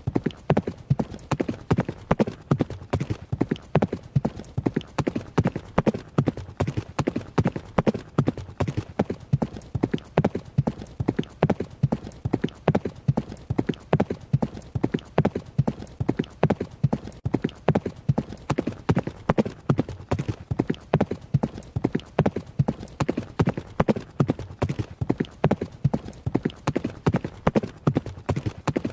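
Horse hoofbeats at a run: a fast, steady rhythm of hooves striking the ground, unbroken throughout.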